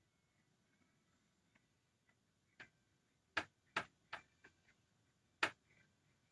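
Plastic squeegee scraping paste across a silkscreen stencil on a small board, making about half a dozen faint, sharp, irregular clicks that start about two and a half seconds in.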